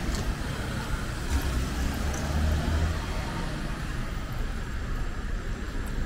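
City street traffic: the low engine rumble of a passing motor vehicle, strongest between about one and three seconds in, over a steady traffic hum.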